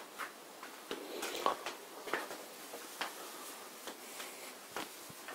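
Faint scattered clicks, taps and rustles from a handheld camera being moved around a vehicle.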